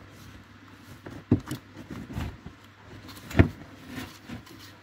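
Hands fitting an ABS wheel speed sensor into its hole in a car's steering knuckle: handling noise with a few short knocks, the sharpest and loudest about three and a half seconds in.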